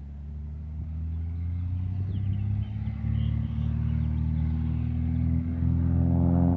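Piper Cherokee's single propeller engine running and building power, getting steadily louder with its pitch slowly rising.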